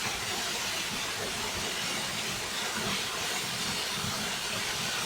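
Steady rushing noise of water pouring over McLaren Falls.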